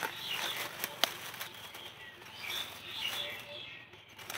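Dry grass rustling and crackling as a knife blade is worked through it to dig out a mushroom, with one sharp click about a second in.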